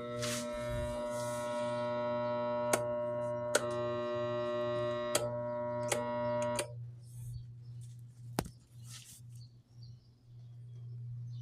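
Electric fan making a noise: a steady, ringing hum with several overtones, broken by a few sharp clicks. The higher tones cut off suddenly about two-thirds of the way through, leaving only a low hum.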